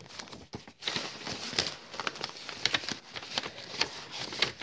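Paper card stock and cellophane wrapping being handled: a quick run of small crackles, clicks and rustles.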